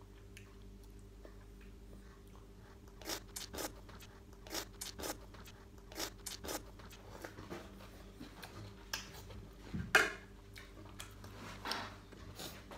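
Crunching and chewing of food in the mouth, close to the microphone: a series of short, sharp crunches beginning about three seconds in, the loudest about ten seconds in.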